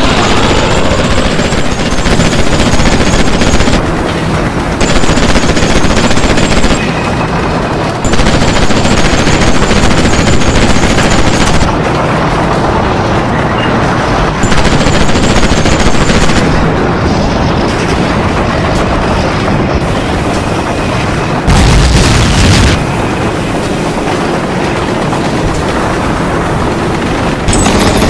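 Battle sound effects of continuous machine-gun fire mixed with scattered explosions, with one louder blast about three-quarters of the way through.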